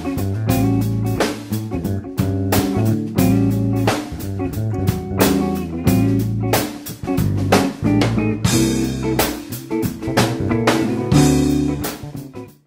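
Background music: a band with drum kit and guitar playing a steady beat, fading out near the end.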